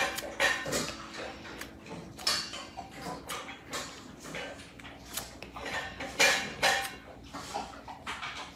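A tiny puppy, at the stage of a two-week-old, suckling milk from a feeding bottle: irregular wet clicks and smacks of her mouth working the nipple.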